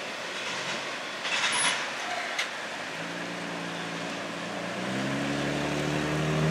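A road vehicle's engine running, growing louder from about halfway through and beginning to rise in pitch at the end as it pulls away, over a faint wash of noise with a brief hiss a second and a half in.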